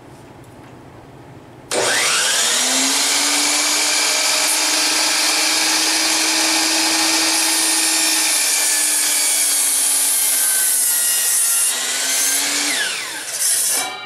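Electric miter saw starts up about two seconds in and runs steadily as its blade cuts down through a thick stack of wooden boards. Near the end the motor tone drops and the blade winds down.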